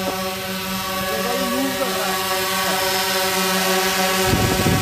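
Quadcopter drone hovering overhead, its propellers giving a steady buzz that grows louder as the drone comes close. Near the end a gusty rumble of wind on the microphone sets in under it.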